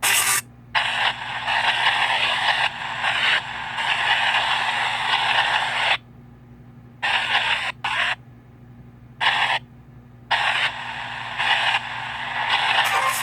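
PXB 07 spirit box sweeping through radio stations: choppy bursts of static and radio fragments that cut in and out, with abrupt short silent gaps between them.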